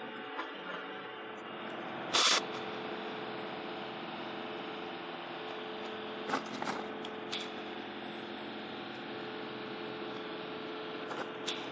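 TIG welder's steady electric hum while welding a steel bike sprocket onto a chainsaw clutch drum, with one loud short crackle about two seconds in and a few brief sharp clicks later.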